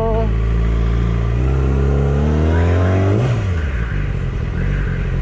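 Sport motorcycle engine accelerating: its note rises for about two seconds, drops suddenly a little past halfway, and then runs steady at a lower pitch.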